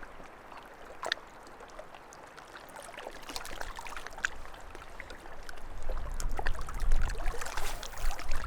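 Lake water lapping and trickling at the shoreline, with scattered small clicks and knocks. About two-thirds of the way in, a low rumble comes in and the sound gets louder.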